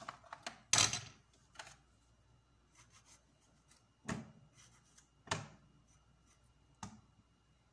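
Tomatoes being handled and dropped into the plastic bowl of a food processor: about five short knocks and rustles, the loudest about a second in. The motor is not running.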